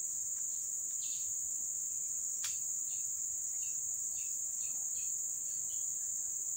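A steady, high-pitched chorus of insects buzzing without a break, with faint short chirps over it and a single sharp click about two and a half seconds in.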